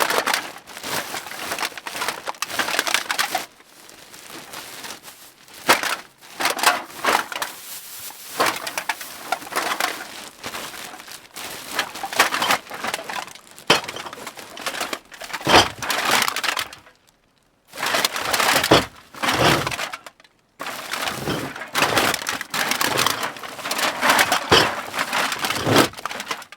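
Metal cans being dropped and pushed into a bag: irregular clinking and clattering with bag rustle, in clusters with two brief pauses in the second half.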